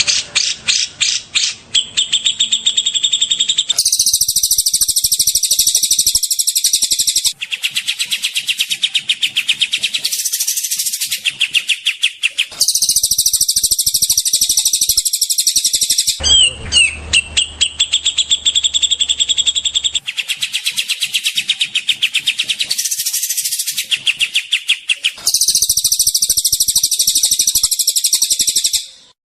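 Edited recordings of songbirds giving fast, high, rattling trills of rapidly repeated notes, the song switching abruptly to a different bird or phrase every few seconds. The last segment cuts off sharply near the end.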